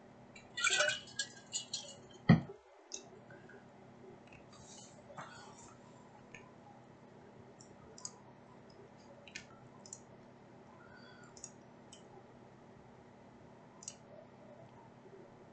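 A quick flurry of clicks and light rattles about half a second in, then one sharp knock, the loudest sound, a little after two seconds. After that, single faint clicks every second or two over a quiet room.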